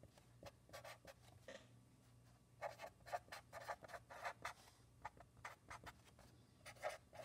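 Felt-tip marker writing on paper in faint, short scratchy strokes: a run of strokes near the middle and another starting near the end, over a faint steady low hum.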